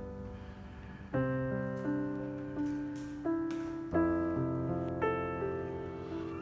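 Soft background piano music, slow chords struck about every second and left to ring.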